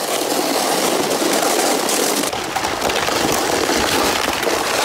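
Sled sliding fast over icy snow: a steady, loud scraping rumble.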